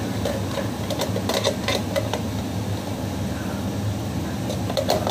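A steady low mechanical hum runs throughout. Light metal clinks, a steel spoon against the aluminium kadai, come in clusters about a second and a half in and again near the end.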